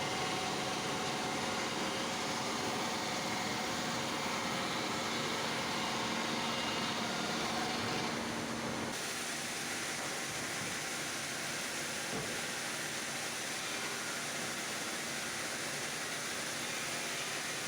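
Steady machinery hum and noise, with faint steady tones in it. About halfway through the sound changes suddenly: the tones drop out and a thinner, even noise carries on.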